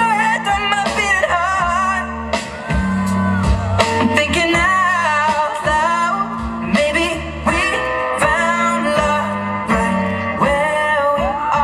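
A song playing, with a singing voice over instruments and a repeating bass line.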